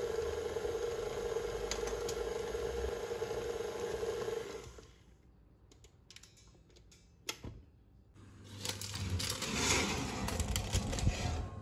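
KitchenAid tilt-head stand mixer running steadily, its flat beater working thick choux pastry dough, with a steady motor whine; it stops about four and a half seconds in. After a quiet stretch with a sharp click, metal rattling and scraping as a springform pan is slid out on an oven rack, over a low hum.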